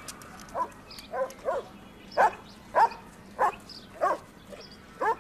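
A dog barking repeatedly, short barks coming about every half second.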